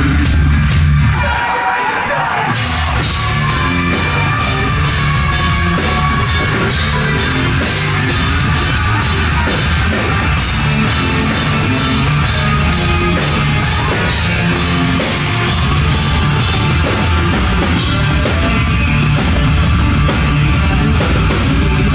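Live rock band playing loud heavy rock through a club PA: distorted guitars, bass and pounding drums. About a second in, the bass and kick drop out briefly before the full band comes back in.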